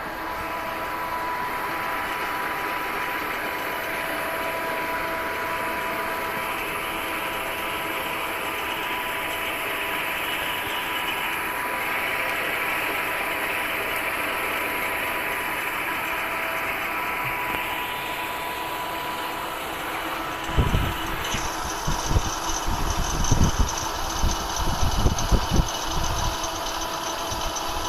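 1970 Waken-Maro 8-A engine lathe running with its spindle turning: a steady mechanical hum with a few faint steady tones. About 20 seconds in, irregular heavy low thumps start over it and go on to the end.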